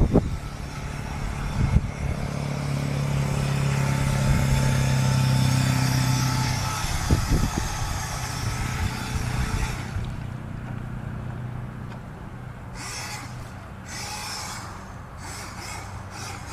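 Electric motor of a battery-powered RC speedboat running on the water, a steady hum that swells for a few seconds and then fades as the boat moves away.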